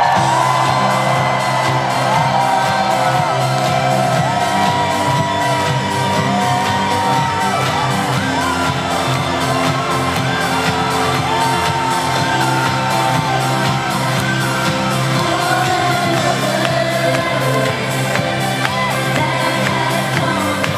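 Live pop song played loud through an arena PA: a female lead vocal with held, gliding notes over a steady electronic dance backing, with whoops from the crowd.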